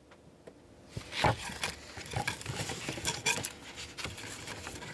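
Stiff paper and cardboard rustling and crinkling as they are handled, with small irregular taps and clicks, starting about a second in.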